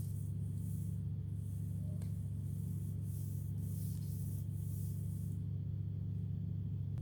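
Cloth or duster rubbing over a surface in quick repeated strokes, stopping about five seconds in, over a steady low hum.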